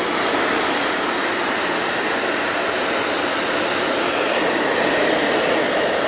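Handheld hair dryer running steadily, a continuous rush of blown air, with a faint whine coming in about four seconds in.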